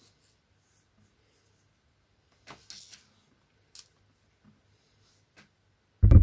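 Faint scratchy rustling and light clicks of yarn being worked with a crochet hook into single crochet stitches, then a sudden low thump near the end.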